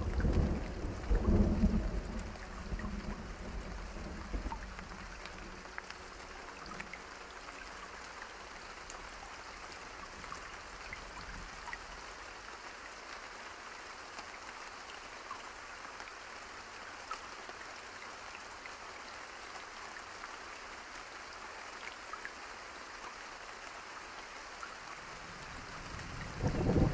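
Steady rain hiss with scattered faint drop ticks, and low rumbles of thunder in the first two seconds and again near the end.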